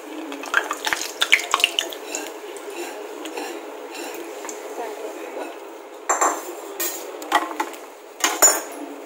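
Steel slotted spoon clinking and scraping against a small cast-iron kadhai as a puffed puri is lifted out of the hot oil, over the steady hiss of frying oil. There is a cluster of quick clinks in the first two seconds, then sharper knocks at about six, seven and a half and eight and a half seconds in.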